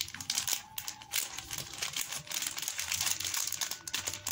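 A plastic bag of cocoa powder crinkling and rustling as a spoon scoops powder out of it.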